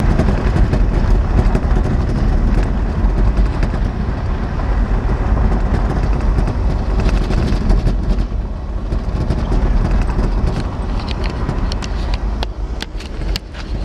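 Truck driving along a dirt road, seen from inside the cab: a steady engine and tyre rumble with many rattles and knocks from the rough road surface, a few sharper clicks near the end.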